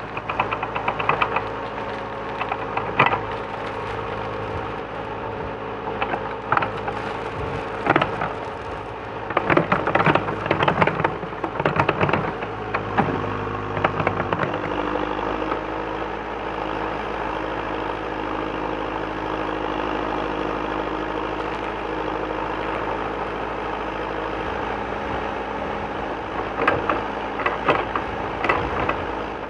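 JCB 3CX SiteMaster backhoe loader's four-cylinder diesel engine running steadily while the backhoe works its bucket in a trench. Bursts of clanking and rattling from the bucket and stones come at times, most around a third of the way in and again near the end.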